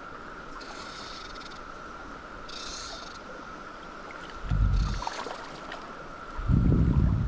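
Steady, even drone of a periodical cicada chorus. Short high buzzes rise over it three times, and loud low rumbles hit the microphone about two-thirds of the way in and again near the end.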